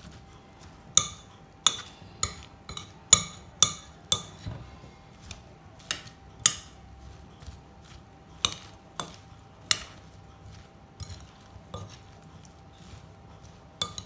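A spoon stirring diced tomato, bell pepper and spinach in a glass bowl, clinking sharply against the glass about fifteen times at uneven intervals, with a soft squish of the vegetables between clinks. A faint steady hum lies underneath.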